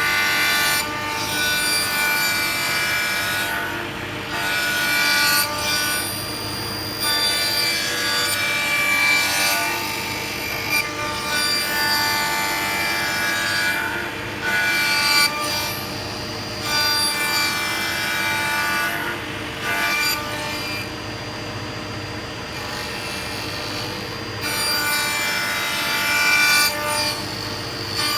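Power saw running and cutting wood, the cutting noise swelling and easing every second or two over the steady tone of the running machine.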